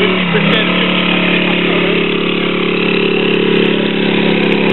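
Small engine of a mini quad (kids' ATV) running under way, its pitch stepping up as it pulls off and then holding a steady note.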